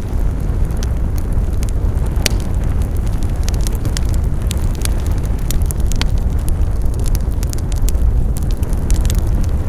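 Wood fire burning with a steady low rumble and frequent irregular sharp crackles and pops from the burning wood.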